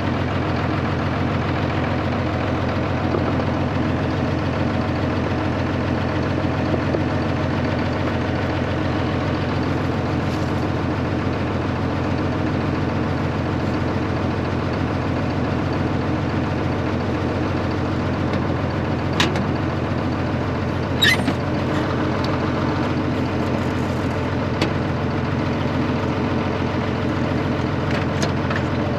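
Farmall 666 tractor engine running at a steady speed. A couple of brief high squeaks come about two-thirds of the way through.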